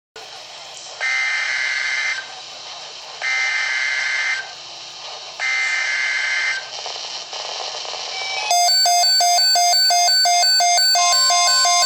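NOAA Weather Radio SAME header: three data bursts, each a harsh electronic warble about a second long, over radio hiss. About eight seconds in, a louder rapidly pulsing electronic alert tone starts, and a steady tone joins it near the end.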